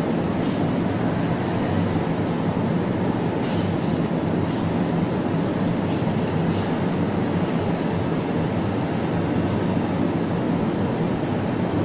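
Steady low rumble of an approaching KTM ETS electric train, with a few faint clicks.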